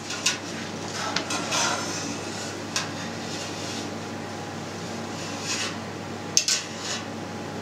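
Wire curd harp being drawn through fresh feta curd in a stainless steel cheese vat, its metal frame scraping and clinking against the vat's sides now and then, with a close pair of sharp clinks near the end. A steady low hum runs underneath.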